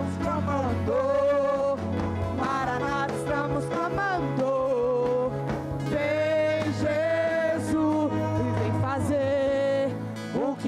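Live church worship band playing, with a sustained sung melody over steady chords.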